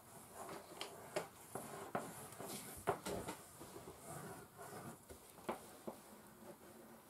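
Wax crayons sketching on sheets of paper on a table, irregular short strokes from several hands drawing at once, with one sharper tap about three seconds in.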